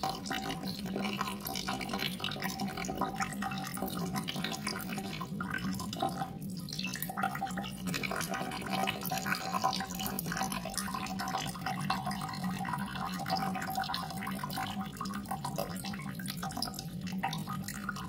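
Water dripping and trickling steadily, a nature water-sound recording, with many small drips throughout.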